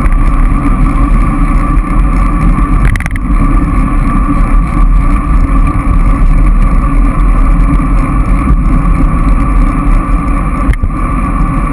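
Wind buffeting the microphone of a bicycle-mounted GoPro as the bike rides along the road: a loud, steady low rumble. Two brief knocks come through, about three seconds in and near the end.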